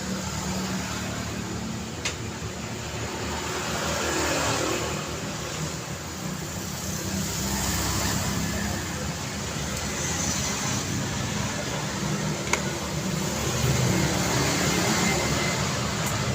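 Street traffic: vehicle engines and tyres passing in a continuous wash that swells and eases as vehicles go by. There are two short sharp clicks, one about two seconds in and one later on.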